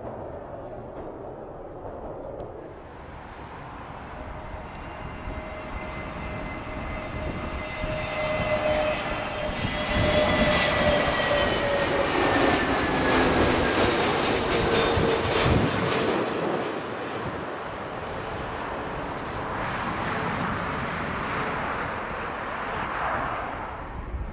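British Airways Airbus A320neo twin-engine jet airliner passing low overhead on final approach. The engine noise swells to its loudest about halfway through, with a whine that falls slowly in pitch as the aircraft goes by, then fades. A second swell of jet noise comes near the end as another airliner approaches.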